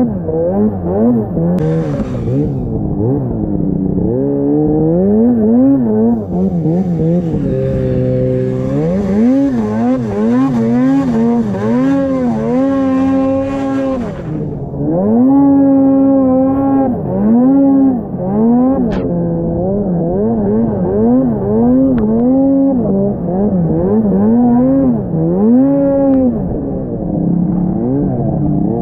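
Snowmobile engine revving up and down over and over as the rider works the throttle, heard from the seat. Its pitch rises and falls about once a second, with a hiss of snow and wind through the middle stretch.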